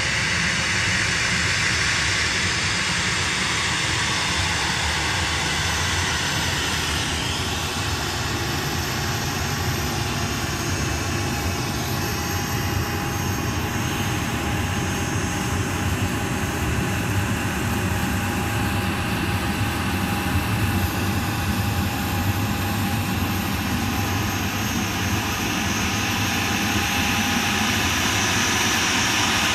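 Boeing 737 jet engines running at taxi power: a steady whine over a low rumble, growing slightly louder near the end as the airliner comes closer.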